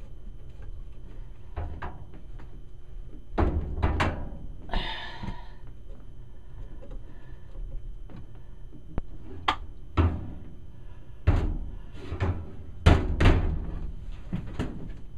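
Irregular sharp knocks and clunks of washing-machine supply hoses and their fittings being handled and connected at the brass valves of a wall outlet box. Two knocks come about 3.5 s in, a short scraping rustle follows, and a run of knocks comes in the last six seconds.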